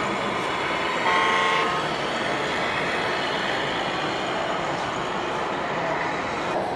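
A short horn blast from a 1/14-scale RC truck's electronic sound module, about a second in and lasting about half a second, over a steady noisy background.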